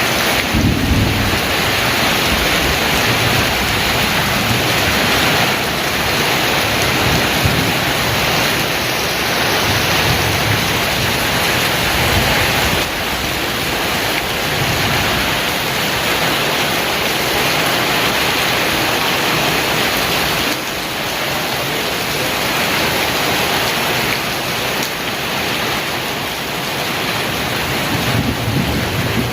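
Heavy rain pouring steadily, with low rumbles of thunder rising about a second in, again midway, and near the end.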